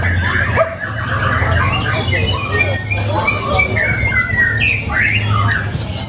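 White-rumped shamas singing in contest cages: many birds' whistled phrases and rising and falling glides overlapping, over a steady low hum.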